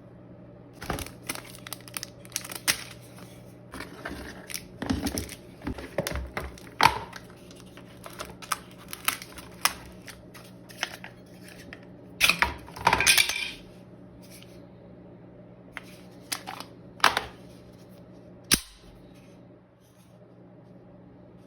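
Mail being unpacked by hand: a run of irregular clicks, knocks and rustles from handling the package and its contents, with a longer rip about twelve seconds in.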